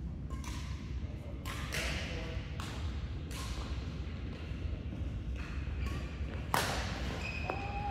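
Badminton rally: rackets striking a shuttlecock about once a second, each hit a sharp crack, the loudest about six and a half seconds in. A short squeak comes near the end.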